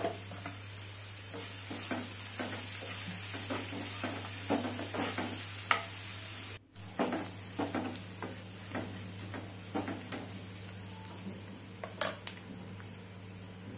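Onions, green chillies and curry leaves frying in oil in a nonstick pan with a steady sizzle, while a spoon stirs them and knocks and scrapes against the pan in many short clicks. All sound drops out for a moment about halfway.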